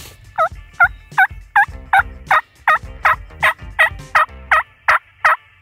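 Turkey yelps on a hand-cupped mouth call: a long, evenly paced run of about fourteen loud notes, roughly three a second, each breaking from a high note down to a lower one.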